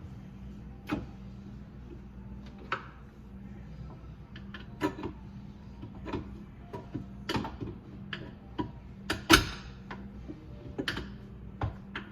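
Scattered clicks, clanks and knocks of hands and tools working on a garbage disposal's parts, with the loudest knock about nine seconds in, over a steady low hum.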